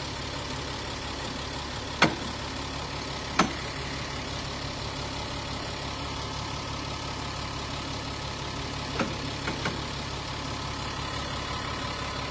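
A vehicle engine idling with a steady low hum. Two sharp knocks come a couple of seconds in, and a few lighter clicks near the end.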